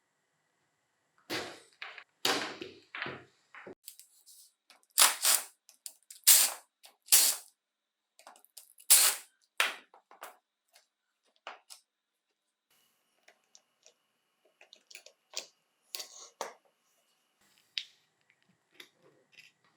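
Irregular sharp clacks and knocks of small hard parts being handled and set down, a cluster of louder ones in the first half and fainter scattered ticks later.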